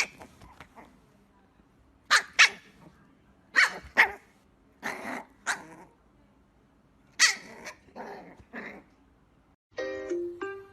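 A dog barking, short sharp barks, often two in quick succession, with pauses between. Ukulele music starts near the end.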